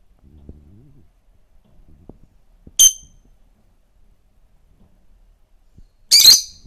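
Rosy-faced lovebird giving two short, shrill, high-pitched chirps about three and a half seconds apart, the second louder and harsher.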